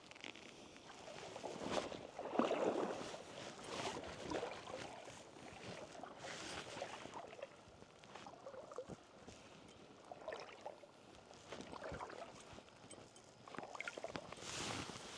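Someone wading through a shallow stream in waders, the water sloshing around the legs in irregular swishes.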